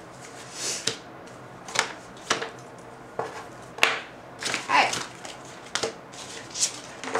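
Picture cards tapped down onto a cardboard board, slid and picked back up: a string of separate light knocks and short scrapes, roughly one or two a second.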